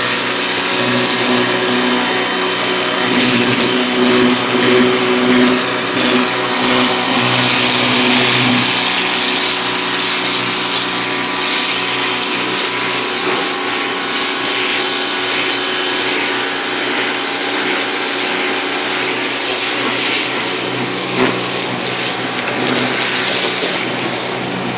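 AR Blue Clean 1900 psi electric pressure washer running steadily, its motor and pump humming under the hiss of the high-pressure water jet. It gets a little quieter near the end.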